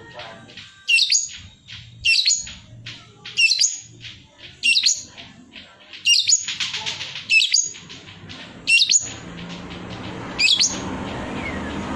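Long-tailed shrike (cendet) giving loud, sharp, high-pitched calls, eight of them, about one every second and a quarter. From about nine seconds in, a steady low hum and a rushing noise rise underneath.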